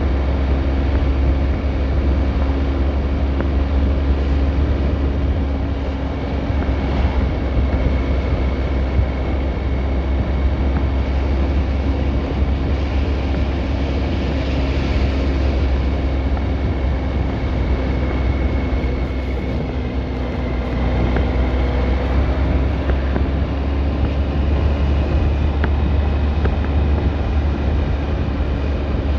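Steady low mechanical rumble with a steady hum and a faint high whine on top.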